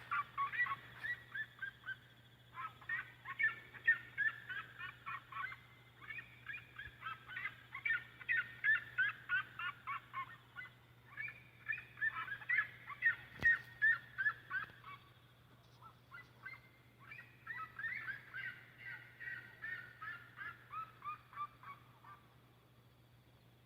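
Red-legged seriema calling: long runs of rapid, yelping notes, several a second, in phrases that break off and start again, dying away near the end. A faint steady low hum lies underneath.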